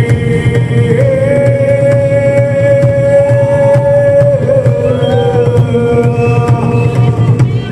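Loud live music: a long held melodic note that bends and slides, over a dense low drone and a steady percussive beat.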